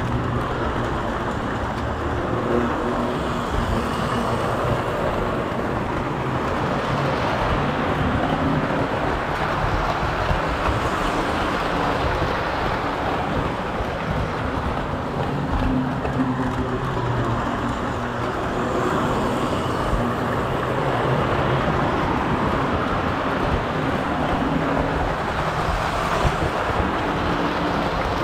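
Lionel O-gauge model train running on three-rail track, heard from on board: a steady rumble and clatter of metal wheels on the rails under a low motor hum, swelling and easing every few seconds.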